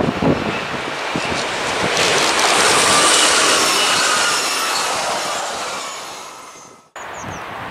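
Double-deck electric passenger train running past at speed: a rushing wheel-on-rail noise with high whining tones swells to a peak a few seconds in, then fades away and cuts off about seven seconds in. Wind on the microphone follows.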